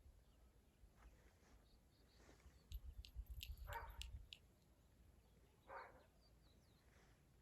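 Border terrier giving two faint, short barks, about four and six seconds in, with a few soft clicks between them.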